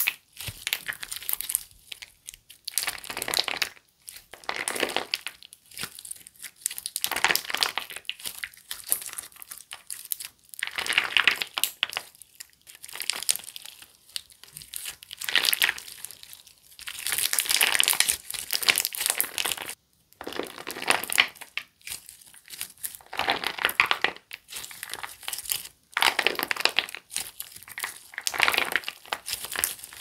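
Clear slime packed with orange jelly balls (Monggle Factory grapefruit candy ball slime) being squeezed, folded and stretched by hand. It makes repeated bursts of sticky crackling and small pops, one every second or two.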